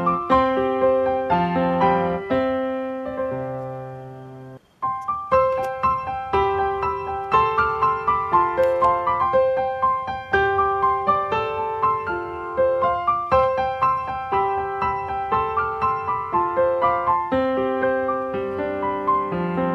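Background music: a light keyboard tune played note by note. It fades and cuts out a little under five seconds in, then starts again.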